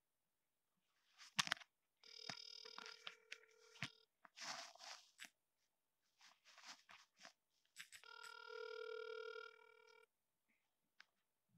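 Phone ringback tone heard over a smartphone's speakerphone: two rings, each about two seconds long, with about four seconds between them, as the called line rings unanswered. A sharp click comes about a second in, with faint rustling noises between the rings.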